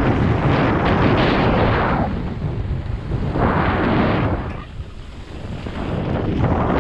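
Wind buffeting the microphone on a fast downhill run, a loud rushing rumble that eases briefly about two seconds in and again about halfway through, then builds back up.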